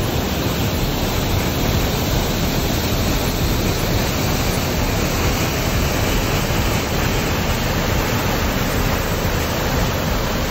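Torrent of water rushing down a concrete dam spillway and churning into the pool below: a loud, steady rush of white water.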